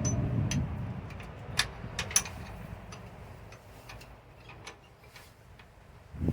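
Scattered small metal clicks and clinks: hand-fitting a flat washer and nut onto the mounting bolt of a truck's brake quick release air valve. A low rumble fades out over the first few seconds.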